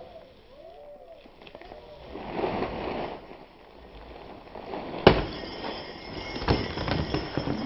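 Slowed-down slow-motion sound of a bat swinging at a Christmas-tree piñata: low, drawn-out rumbling, then a sharp hit about five seconds in as the bat strikes the piñata, and a smaller knock about a second and a half later.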